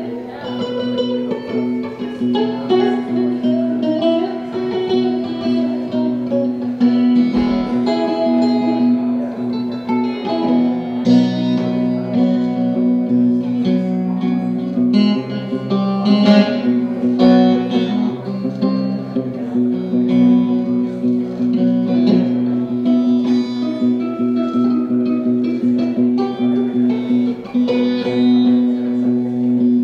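Instrumental music: plucked guitar notes over a steady, sustained low drone.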